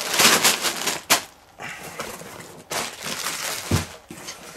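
Plastic bags of LEGO pieces tumbling out of a tipped cardboard box onto carpet: a loud rustle in the first second with a sharp knock about a second in, then another burst of rustling about three seconds in and a dull thump soon after.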